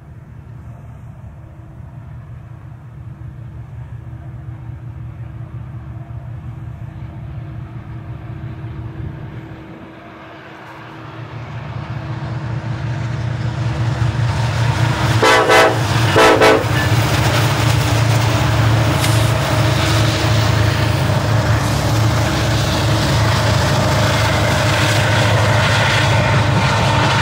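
BNSF diesel-electric freight locomotives on a coal train, their engines running with a deep steady throb that grows louder as they come close. About fifteen seconds in, the horn sounds in short blasts, then the locomotives pass and the rolling train noise fills in.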